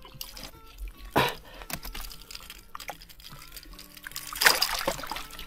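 Water splashing and dripping in shallow water among rocks as a hooked largemouth bass flops at the surface, with one sharp splash about a second in and a longer spell of splashing near the end. Faint background music plays underneath.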